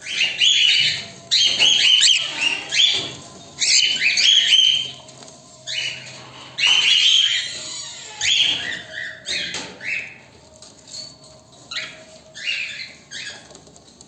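Cockatiels in a cage calling: a run of loud, harsh chirps coming several to a second at first, thinning out to scattered calls in the second half.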